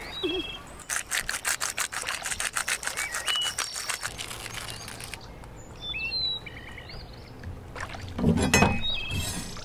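Hand pepper grinder grinding, a rapid run of crunching clicks lasting about three seconds. Short bird chirps come through several times, and there is a louder handling rustle near the end.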